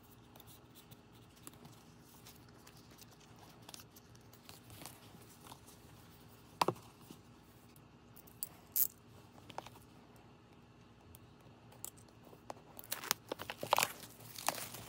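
Quiet handling of paper and card with scattered light clicks and one sharp knock a little before halfway, then near the end a dense crackling as plastic shrink wrap is torn and peeled off a boxed DVD set.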